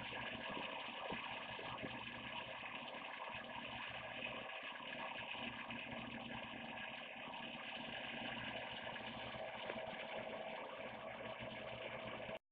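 Faint steady mechanical hum with a constant tone running through it; it cuts off abruptly near the end.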